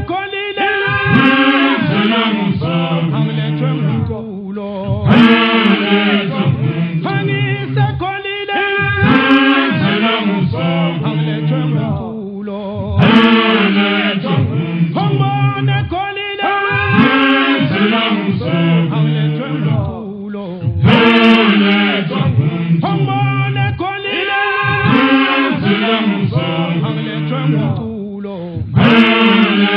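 Isicathamiya all-male choir singing unaccompanied, deep massed voices in close harmony, with a louder swell of phrases about every four seconds.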